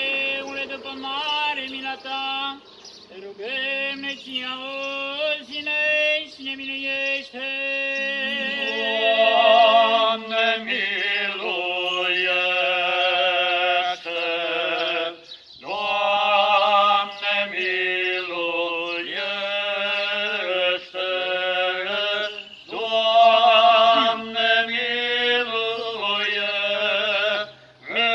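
Unaccompanied male voices chanting a slow, drawn-out Orthodox liturgical hymn, each syllable stretched over several held notes, with brief pauses for breath about halfway through and near the end.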